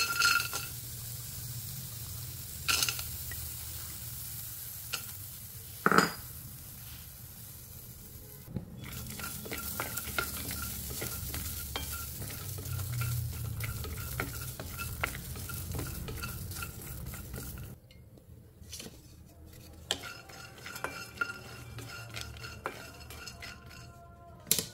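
Cashew nuts dropped into a dry stainless steel pan with a clatter, then roasted without oil and stirred with a wooden spatula: the nuts scrape and rattle against the metal over a steady hiss, with a few sharper knocks in the first six seconds.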